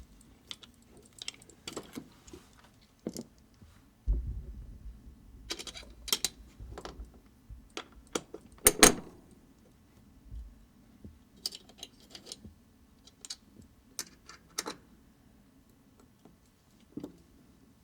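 Small steel press dies and tools being handled and swapped, giving irregular metal clicks and clinks, with the loudest clunk about nine seconds in.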